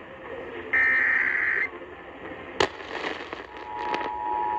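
Emergency Alert System SAME header burst heard over AM radio: about a second of shrill digital data tones amid hiss and static. A sharp static crack follows, then crackling, and near the end the steady two-tone EAS attention signal (853 and 960 Hz) starts.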